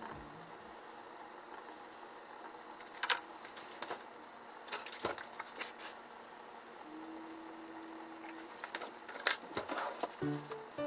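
Quiet kitchen handling: a few scattered clicks and taps of chopsticks and a plastic dressing bottle against a salad plate. Background music starts near the end.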